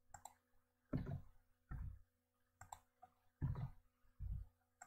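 Computer keyboard and mouse clicks: a handful of separate taps and clicks, about one a second, as code is typed and edited.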